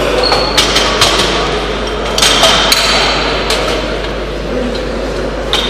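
Metal weight plates being loaded onto a barbell: a run of sharp clanks and knocks, some leaving a high ringing, as plates slide onto the bar sleeve and strike the plates already on it. The clanks come in a cluster a couple of seconds in, with single knocks earlier and near the end.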